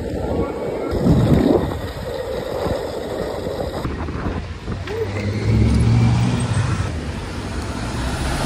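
City street traffic noise, with a heavy truck's diesel engine running close by in the second half.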